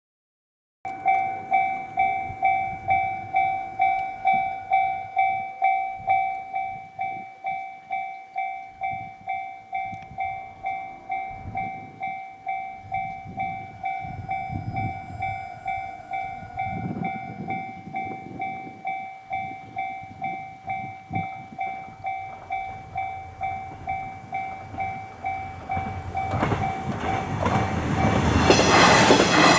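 Japanese level-crossing alarm ringing a steady bell tone about twice a second. It starts suddenly about a second in and gets a little quieter after about six seconds. Near the end a train arrives, its running noise rising to the loudest sound.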